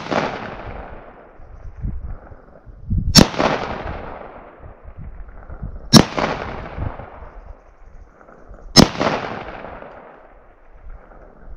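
Rifle shots from an A2-pattern AR-15 firing .223 Remington hollow points, one about every three seconds: four sharp cracks, the first right at the start. Each trails off in a long echo.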